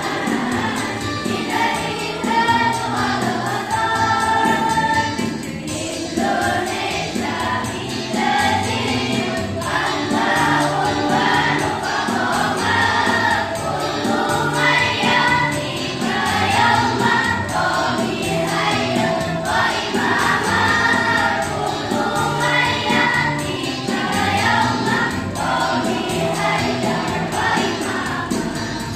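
A girls' choir singing together, with steady held low notes of an instrumental accompaniment underneath.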